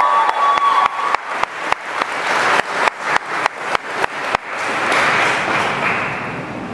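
Audience applause with sharp claps in a steady rhythm, about four to five a second, for the first four seconds. A swell of crowd applause and noise follows, rising and then fading.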